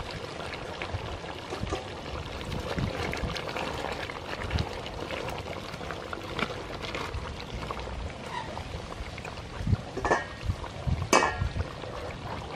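Chicken curry bubbling in a large metal pot while a wooden ladle stirs through it, sloshing the thick liquid. A few sharper knocks and scrapes about ten seconds in are the loudest part.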